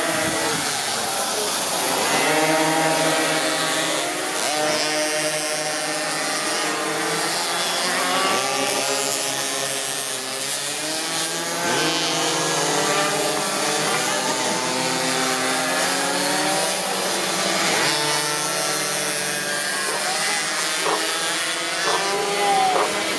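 Several minimoto racing minibikes' small engines buzzing around the track, overlapping, their pitches rising and falling as the riders accelerate out of corners and ease off into them. A few sharp knocks near the end.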